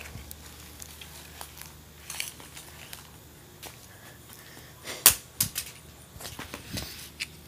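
Someone walking through grass while holding a phone camera: scattered light clicks and rustles, with one sharp click about five seconds in.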